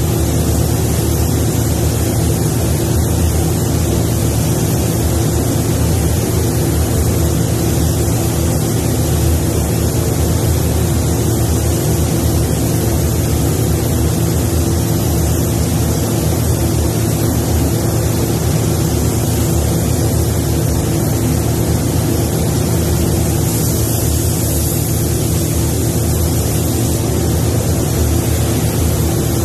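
Paint spray booth's ventilation fans running: a steady mechanical drone with an even hiss over it.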